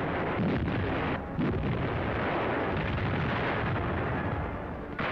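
Field artillery firing: a dense, continuous rumble of gunfire and explosions, with a few sharper reports in the first second and a half, heard on a 1941 newsreel soundtrack.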